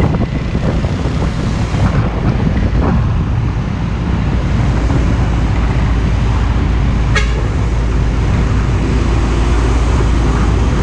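Heavy truck's diesel engine running close by with road traffic noise, a deep steady rumble that swells a little midway; a brief sharp click about seven seconds in.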